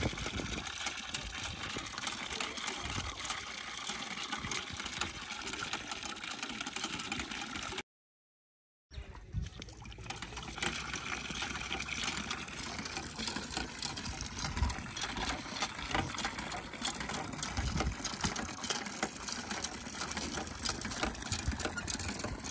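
Liquid sloshing and splashing with many small clicks, broken by about a second of complete silence a third of the way in.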